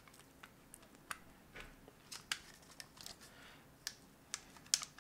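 Small plastic clicks and taps as the halves of a tinted plastic Raspberry Pi case are handled and fitted together. The clicks come irregularly, sparse at first and more frequent from about two seconds in, the sharpest one near the end.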